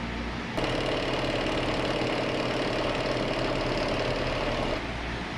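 Milling machine cutting metal: a spinning cutter boring a round hole in a clamped metal plate, a steady rough whine with held tones. It starts suddenly about half a second in and stops suddenly near the end, over a low steady shop hum.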